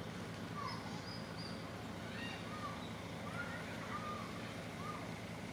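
A string of short, rising-and-falling animal calls, several a second at times, over a steady low hum.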